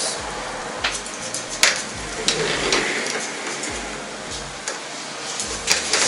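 Hair-cutting scissors snipping through wet hair in a few irregular, sharp cuts, lightening the ends.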